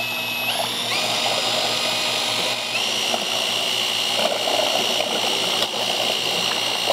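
HPT cordless mixer drill in second gear, spinning a paddle through epoxy in a paint can. Its motor whine steps up in pitch about half a second in, again near one second and again near three seconds as the variable-speed trigger is squeezed further to raise the RPM.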